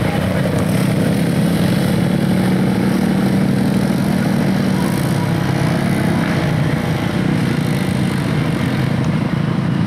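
Engines of a group of four-wheeler ATVs and side-by-sides running together as they ride off, a steady low hum with no break.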